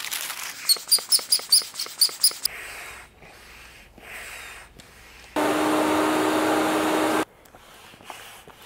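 Hand pump inflating an inflatable paddle board in sped-up footage: a quick run of pumping strokes with high squeaky chirps, then a louder steady sound with a single steady tone for about two seconds midway.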